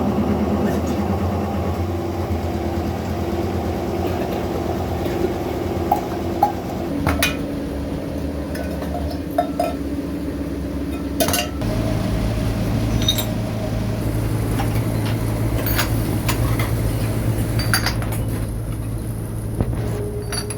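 Workshop machine motor running with a steady hum whose pitch shifts about a third of the way in and again just past halfway, with scattered light metallic clinks and taps of sheet-metal kettle parts being handled.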